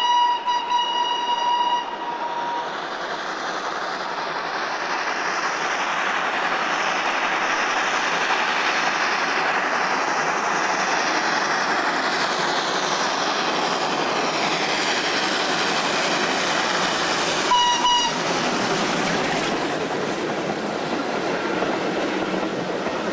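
FS Gr.981 rack steam locomotive's whistle sounding a long steady note that stops about two seconds in, then the train's running noise building as it approaches. A short whistle blast comes about 18 seconds in, and the coaches roll past close by near the end.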